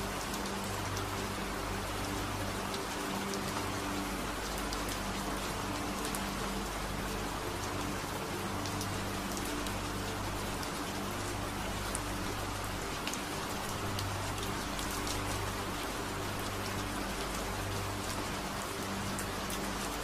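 Steady rain, with scattered sharp drop ticks, over a low hum that keeps fading in and out every second or so: a rain-sound delta-wave relaxation track.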